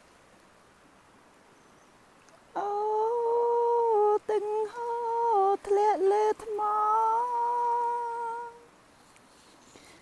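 A woman humming a slow tune in long held notes with short breaks, starting about two and a half seconds in and stopping near the end; faint outdoor ambience before and after.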